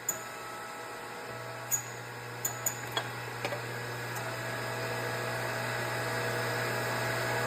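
Powered shop press running with a steady hum that steps up about a second in and slowly grows louder under rising load, pushing the drive shaft out of an Eaton M112 supercharger snout. A few light metal clicks and clinks are heard early on.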